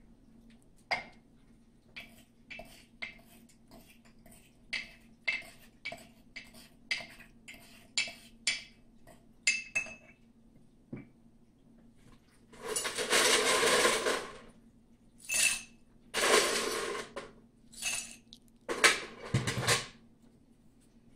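A muddler knocking and pressing in the bottom of a cut-glass mixing glass to dissolve sugar and bitters, about two short knocks a second for the first ten seconds. Then ice goes into the glass in five loud rattling spills, the first and longest about a second and a half.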